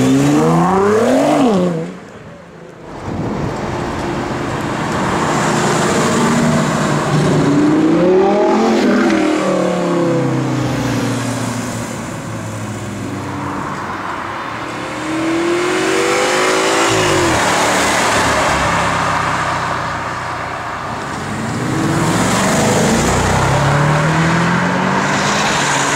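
Supercar engines accelerating hard one after another in about four separate runs. Each engine's pitch climbs as it revs up, then falls away as the car passes.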